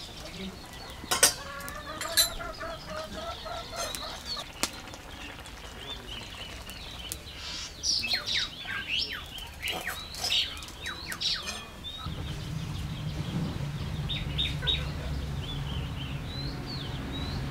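Birds chirping in many short, quick calls, with a couple of sharp metal clinks about a second and two seconds in. A low steady hum comes in about two-thirds of the way through.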